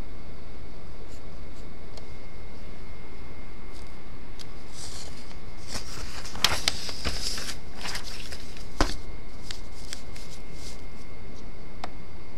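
Felt-tip marker scratching on paper in a few short strokes, a cluster of them midway, then a sharp click and paper being handled, over a steady background hiss.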